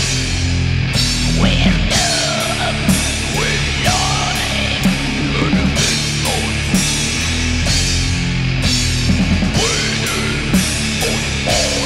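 Death-doom metal: heavy distorted guitar and bass riffing over a drum kit, with cymbal crashes landing about once a second and gliding high notes bent over the riff. Quick runs of drum hits come in late on.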